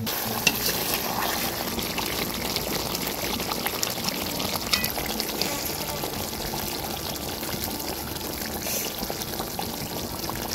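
Liquid boiling hard in a large wok over a wood fire: a steady bubbling hiss with scattered small pops and crackles.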